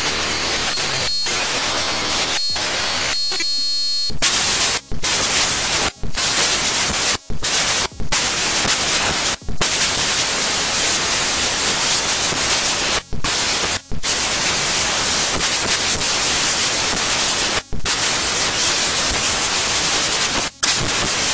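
Loud, steady static hiss like white noise that cuts out for a split second several times.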